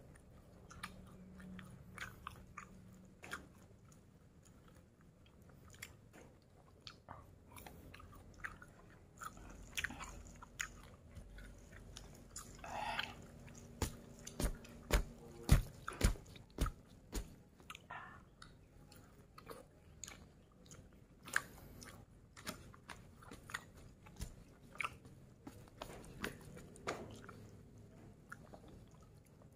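A person biting and chewing food close to the microphone, with a run of louder crunchy bites in the middle.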